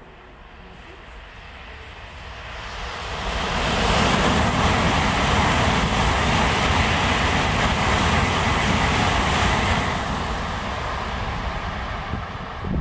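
Tokaido Shinkansen train passing through the station at speed: a rush of wheel and wind noise that builds over a few seconds, holds loud for about six seconds, then eases off as the train recedes.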